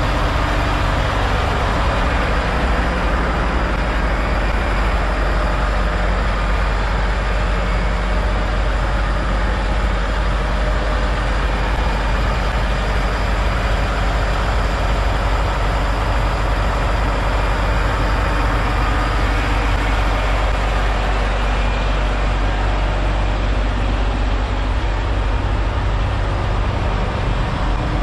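Diesel engines of parked Peterbilt semi trucks idling, a steady low idle with a hiss above it that doesn't change.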